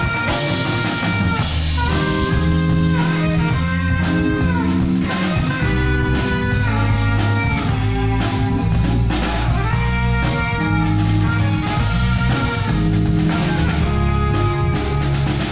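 Live jazz band playing: a saxophone carries the melody over electric guitar, bass and drum kit.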